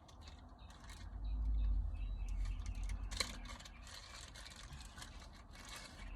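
Small hard objects being handled by hand: a run of irregular clicks and rattles, with a low rumble of handling noise about a second in and one sharper click a little after three seconds.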